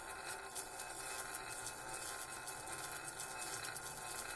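Faint, steady hiss with no distinct sound events.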